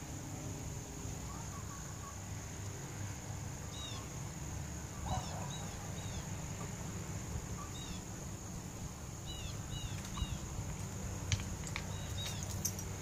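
Backyard ambience at dusk: a bird giving short chirps in small groups of two or three, over a steady high-pitched drone and a low rumble of wind on the microphone. A few light clicks near the end.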